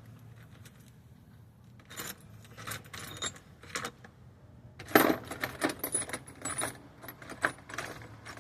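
Small metal parts and tools clinking and rattling against each other: scattered sharp clicks, then a busier, louder run of clinks with a bright metallic ring from about five seconds in.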